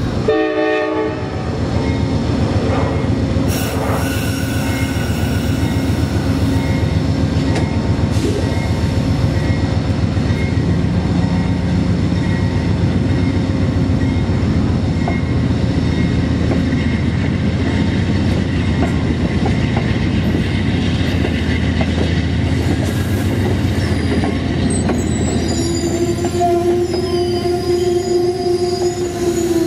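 Amtrak P42DC diesel locomotive and its passenger cars rolling past: heavy, steady engine rumble and wheels on rail. A steady tone rises over the train for the last few seconds.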